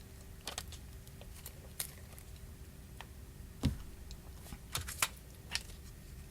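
Scattered light clicks and taps of small hand tools and fingers against a smartphone's parts, irregular, with one stronger tap a little past the middle.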